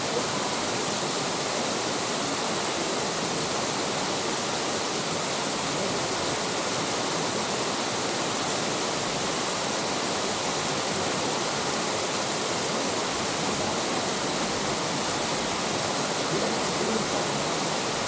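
Small waterfall splashing steadily into a rock pool: an even, unbroken rush of falling water.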